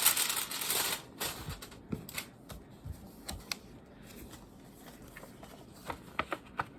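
Packaging rustling for about the first second, then scattered light clicks and taps as the cardboard parts and cards of a K-pop album are handled.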